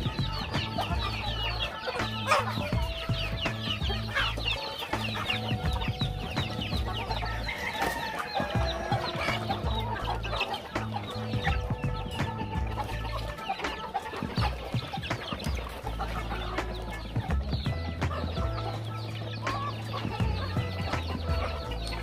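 A flock of free-range chickens clucking and calling continually as they feed, with many short, quick calls overlapping.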